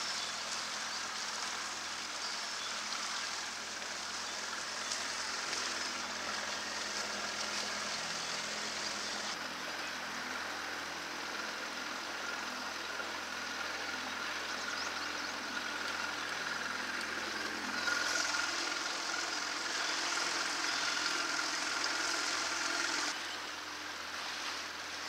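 Boat outboard motor running steadily at low speed, under a constant hiss of water rushing past the hull and wind. The sound steps louder a little past the middle and drops back near the end.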